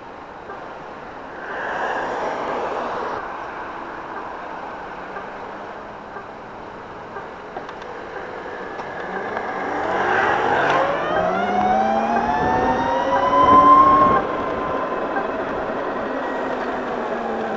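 Wind and road noise while riding a Gogoro electric scooter, with a louder rush about two seconds in. From about halfway, a whine rises steadily in pitch as the scooter accelerates, then drops in loudness near the end and slowly falls in pitch as it eases off.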